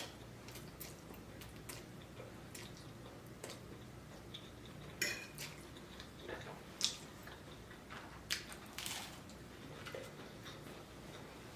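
Fork clinking and scraping on a plate while eating: scattered light clicks, with a few louder clinks from midway on.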